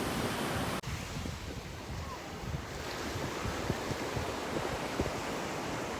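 Wind buffeting the microphone over the wash of sea surf, with an abrupt change in the noise about a second in.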